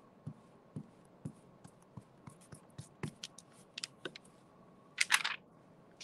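Glue stick rubbed back and forth over a paper cut-out lying on magazine pages, a string of faint scratchy strokes, with a louder rustle of paper about five seconds in as the piece is handled.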